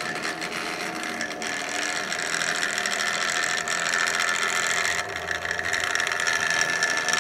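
Tri-ang Hornby OO gauge model trains, a Jinty tank engine among them, running on the layout track: a steady whir of the small electric motors and gearing, with a few clicks from the wheels on the rail.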